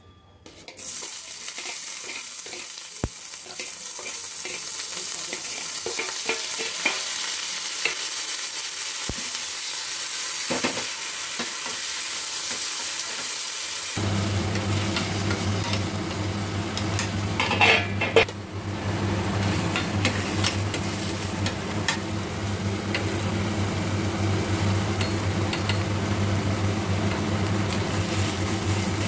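Chopped onion, capsicum and tomato sizzling as they fry in oil in a stainless steel pan, stirred with a spatula. A steady low hum joins about halfway through.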